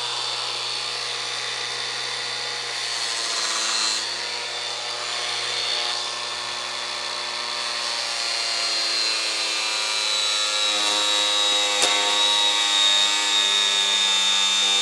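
Cordless angle grinder with a homemade pressed toilet-paper disc running steadily with a high whine while grinding a wooden plank. The whine sags slightly lower in pitch in the second half.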